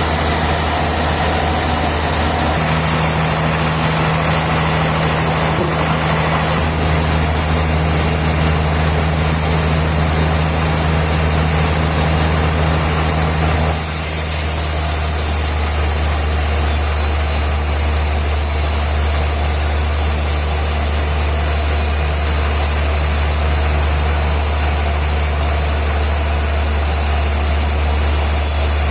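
Sawmill machinery running steadily with a strong low hum. About halfway through the sound shifts: the mid-range noise drops away and a high hiss comes up.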